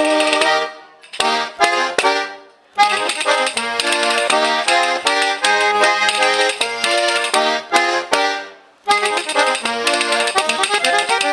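Trikitixa, the Basque two-row diatonic button accordion, playing an instrumental passage in chords with pandero tambourine strikes. The accordion stops twice for a moment, about a second in and again near the end, leaving only a few tambourine taps in the gaps.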